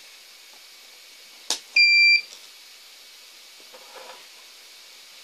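A click, then one short, high electronic beep lasting under half a second.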